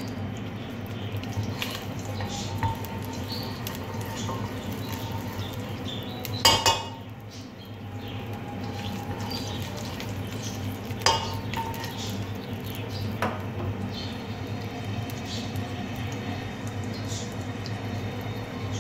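Metal spoon stirring cumin seeds in oil in a non-stick pot, scraping and clinking against the pot, with a loud knock about six and a half seconds in and sharper taps near eleven and thirteen seconds. A steady low hum runs underneath.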